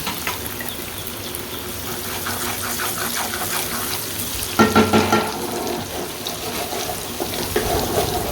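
Oil sizzling in a pan as chopped ginger, garlic and green chillies fry, a steady hiss. About four and a half seconds in comes a brief, louder metal clatter with a ringing tone, like a utensil knocking the pan.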